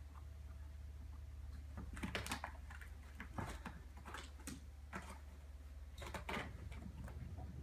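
A kitten scrabbling and scratching at a sisal-rope scratching tunnel: irregular scratchy clicks and taps that start about two seconds in, over a low steady hum.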